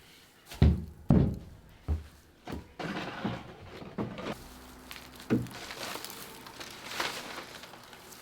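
Straw litter being loaded into bags: irregular dull thumps, the two loudest about a second in, with rustling in between.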